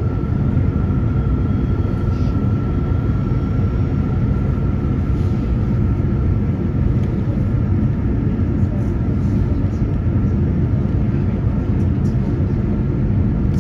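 Steady low rumble of an electric commuter train running, heard from inside the carriage, with a faint steady whine that fades out about halfway through.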